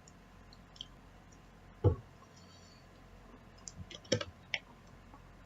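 A single dull thump about two seconds in, then a quick cluster of sharp clicks near four seconds.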